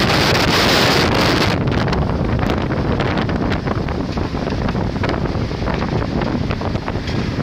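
Hurricane-force wind rushing and buffeting the microphone, loudest and hissiest for the first second and a half, then easing a little while still gusting.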